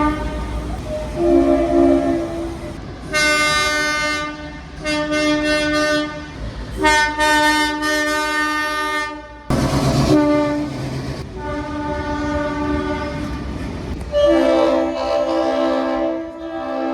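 Train horns sounding a run of blasts, one after another: different multi-note chord horns, each held for one to two and a half seconds, over a steady low engine rumble. A brief rushing noise comes about halfway through.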